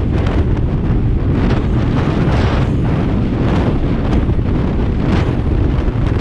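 Loud, steady wind buffeting the microphone of a camera riding along on a bicycle at race speed.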